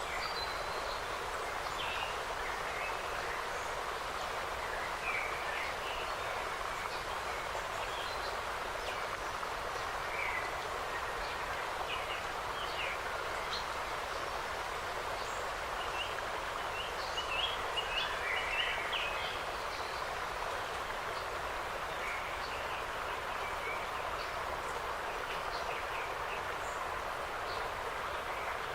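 Autumn forest ambience: a steady hiss of wind through the trees and leaves, with scattered short bird chirps throughout and a brief flurry of them about two-thirds of the way through.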